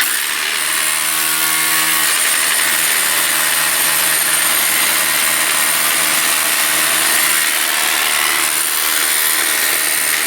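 Electric rotary hammer running steadily without a break as it chisels out an opening in a wall.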